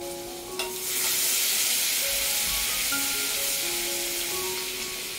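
Crushed garlic sizzling in hot oil in a stainless steel kadhai during the tempering (phodni). After a light knock the sizzle swells about a second in and stays strong while a spoon stirs it.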